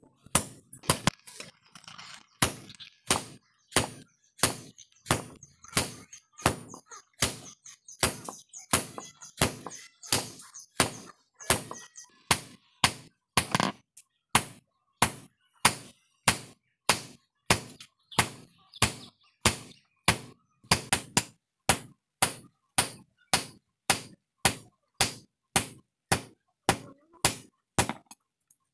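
A hammer striking a red-hot iron bar on a round iron anvil, hand-forging it: a steady run of blows, about two a second.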